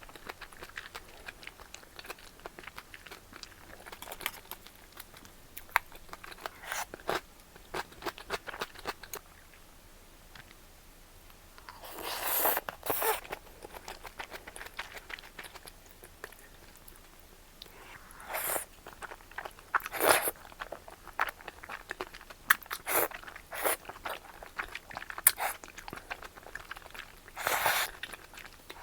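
Close-miked eating sounds: a person chewing and biting, with crunches and wet mouth clicks, and a few louder bursts of chewing spread through.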